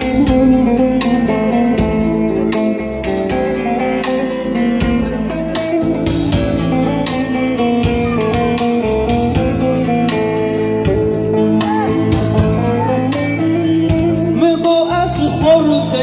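Instrumental passage of a Kurdish folk song: a plucked string instrument plays the melody over a steady beat.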